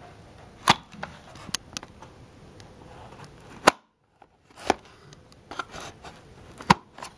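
Handling noise: several sharp clicks and knocks, with light rustling between them, as objects are picked up and moved. The sound drops to dead silence for a moment just before the middle.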